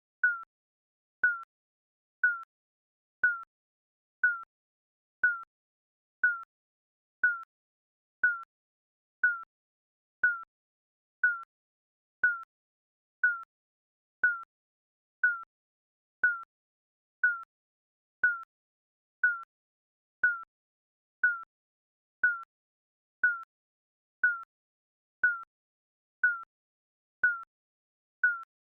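Short digital timer beep repeating evenly, about once a second.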